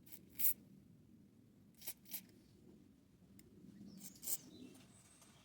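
Small hand tools cleaning out a chainsaw carburetor's clogged passages and sediment: about five short, sharp scratchy sounds, two near the start, two around two seconds in and one past four seconds, over a faint low hum.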